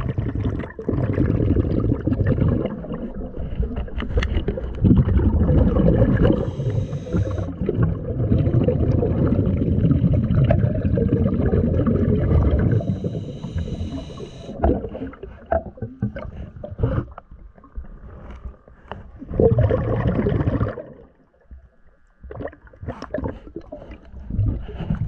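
Underwater sound of a scuba diver breathing through a regulator: long rumbling gushes of exhaled bubbles, each followed by a short hiss of inhalation. In the second half come scattered short knocks and clicks.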